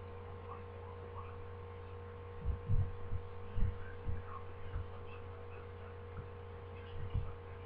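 Steady electrical hum on the microphone, broken by a handful of short, dull, deep thumps between about two and five seconds in and once more near the end.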